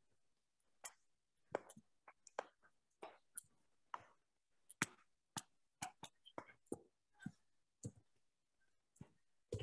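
Faint, irregular clicks, roughly two a second, from someone working a computer's input to write on a shared online whiteboard.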